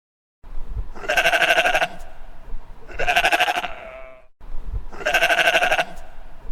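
Sheep bleating: three long, quavering baas about two seconds apart.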